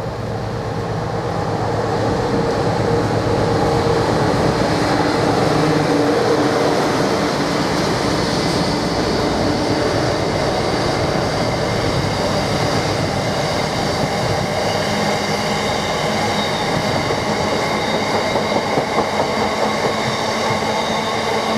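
A train running past close by, with steady loud running noise of wheels on rail. It grows a little louder over the first few seconds, then holds steady.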